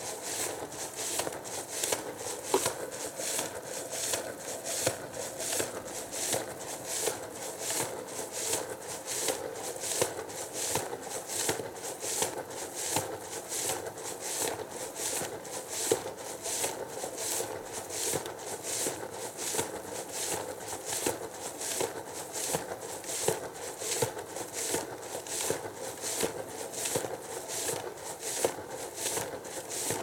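Samsung EcoBubble front-loading washing machine tumbling a wash with its door open: water and foam slosh in the turning drum and splash out of the open door in an even rhythm of about three splashes every two seconds, over a steady hum.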